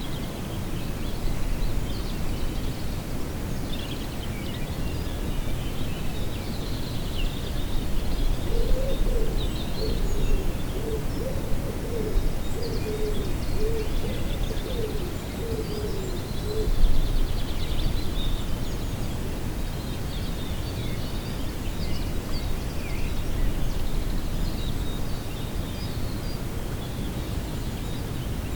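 Birds calling outdoors over a steady low rumble: small birds chirp high and scattered throughout. About a third of the way in, a run of about a dozen short, low, hoot-like calls follows over some eight seconds.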